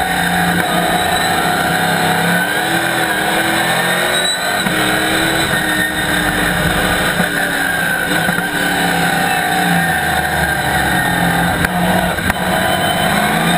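Chevrolet ZZ4 V8 engine of a Camaro Cup race car, heard from inside the cockpit while racing, its pitch rising and falling over and over as it accelerates and shifts.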